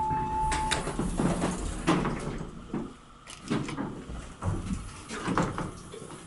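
A short steady electronic beep at the start, then a Westinghouse hydraulic elevator's car door sliding open with a series of clunks and rattles.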